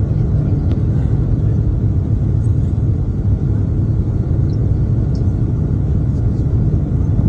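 Steady low rumble of a jet airliner's engines and rushing air, heard inside the passenger cabin during the descent on approach to landing.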